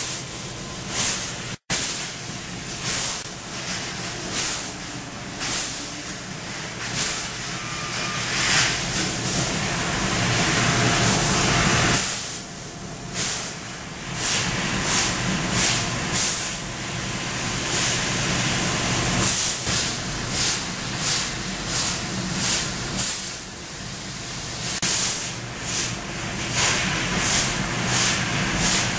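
Trumpf fibre laser cutting machine cutting sheet metal: the assist-gas jet at the cutting head hisses in short repeated bursts, about one and a half a second, as the head moves from cut to cut. About a third of the way through, it hisses steadily for a couple of seconds.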